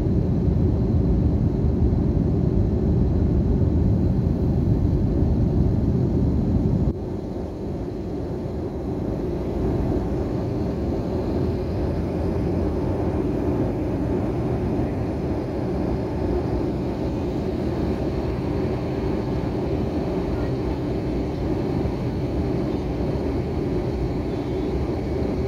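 Airliner cabin noise in flight: a steady rumble of engines and airflow, strongest in the low range. About seven seconds in, the low rumble drops abruptly and then holds steady at a lower level.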